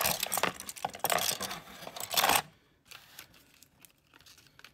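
Small padlocks and their metal keys being handled, clinking and rattling for about two and a half seconds, then a few faint clicks.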